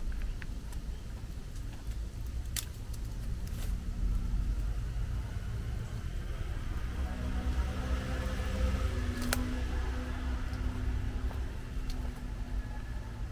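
Motor vehicle passing on a nearby road: a steady low rumble with a faint engine hum that grows louder and peaks a little past the middle, then eases off, with a few light clicks over it.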